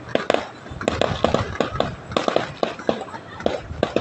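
Fireworks going off: an irregular run of sharp bangs and cracks, about four a second, some close together in pairs.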